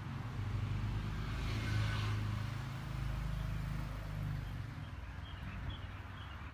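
A motor vehicle's engine running steadily with a low rumble. Faint high chirps about five seconds in.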